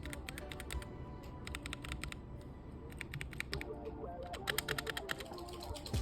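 Typing on a K66 mechanical keyboard: quick runs of key clicks in several bursts, the busiest about three-quarters of the way through.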